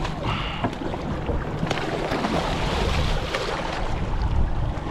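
Boat motor running steadily with wind buffeting the microphone and water noise around the hull, broken by a few sharp clicks and knocks.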